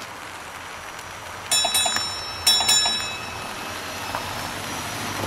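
Tram bell (streetcar bell) fitted to a Toyota Prius, rung in two quick bursts of a few strikes each, about a second apart, as a warning to cyclists and pedestrians. Low road noise from the near-silent hybrid car runs under it.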